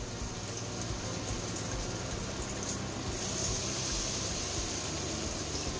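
Beer-battered tailor fillets shallow-frying in hot oil, a steady sizzle. The sizzle grows louder about three seconds in, as another battered fillet is laid into the oil.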